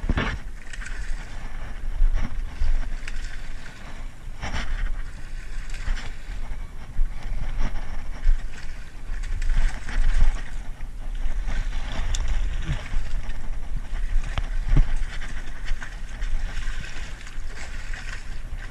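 Steady low wind rumble on an action-camera microphone, with water splashing against shore rocks as a hooked salmon thrashes at the surface. A few sharp knocks break through.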